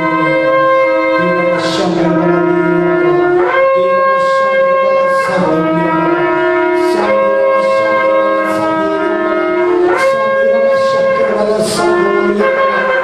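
Two long curved shofars sounding together in long, overlapping blasts, their notes shifting every second or two.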